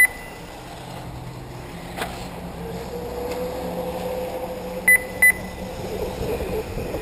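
Short, high electronic beeps from the race's lap-counting system: one at the start and two in quick succession about five seconds in. Under them runs the whine of 1/8-scale electric RC buggies on the track, rising and falling.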